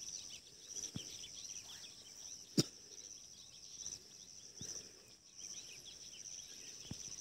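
Steady high drone of insects with many short bird chirps over it, and one sharp click about two and a half seconds in.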